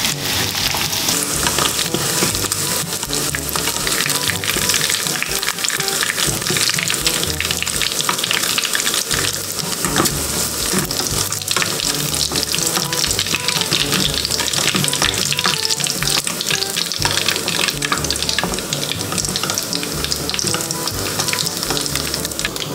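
Cubes of pork belly sizzling and crackling steadily in hot rendered fat in a nonstick wok, browned golden with their water cooked off. A wooden spatula stirs and scoops the pieces out.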